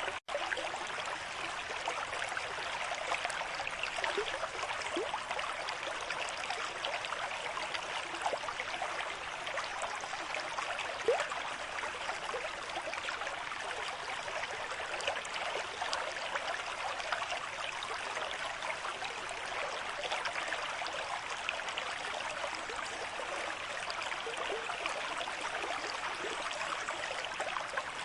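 River stream in moderate flow, running steadily: a continuous rush of water with many small splashes over it.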